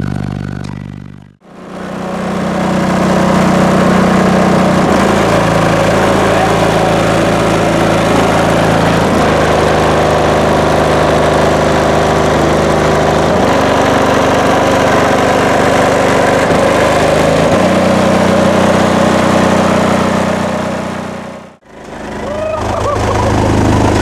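Very loud bass from high-powered car-audio subwoofers: low sustained notes that hold for a few seconds and then step to new pitches, with a dense buzz over them. The sound fades out briefly about a second and a half in and again near the end.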